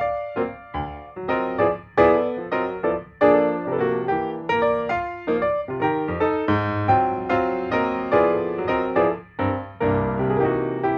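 Background music: piano-like keyboard notes played at a lively pace.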